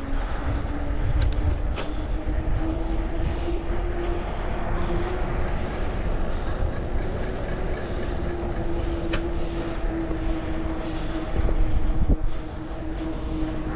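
A small motor whining steadily on a moving ride, its pitch rising a little in the first few seconds and then holding, over wind rumble on the microphone. A few sharp clicks sound, and the rumble grows louder for about a second near the end.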